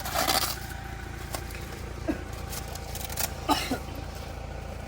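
An engine running steadily, with a few short scrapes and knocks and brief snatches of distant voices.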